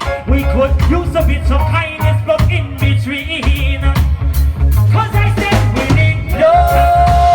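Live reggae band playing with a heavy bass line and drum kit under keys and guitar. A long held note comes in near the end.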